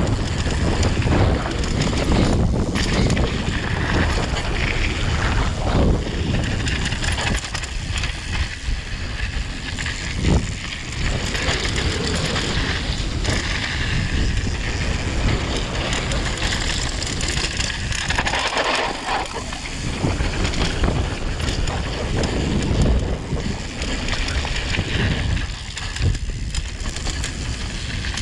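Wind buffeting the microphone of a camera on a mountain bike descending a dirt trail, mixed with the tyres rolling over rocky dirt and the bike rattling over bumps in scattered knocks.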